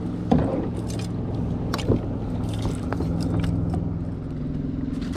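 Steady low hum of a boat motor running, its pitch shifting slightly about halfway through. A few sharp knocks and clicks sound over it.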